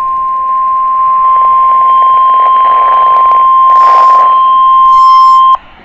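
NOAA Weather Radio 1050 Hz warning alarm tone, heard through the radio's speaker: one loud, steady, high-pitched beep that cuts off suddenly near the end. It is the alert signal that comes before a watch or warning announcement.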